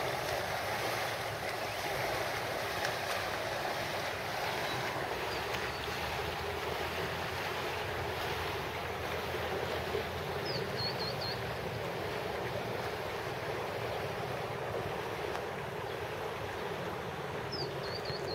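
Steady outdoor rushing noise with no clear single source, and a short high chirp of four quick notes about ten seconds in and again near the end.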